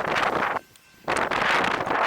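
Strong wind buffeting the microphone with a loud, rough rush of noise. It cuts out abruptly for about half a second shortly after the start, then returns just as suddenly.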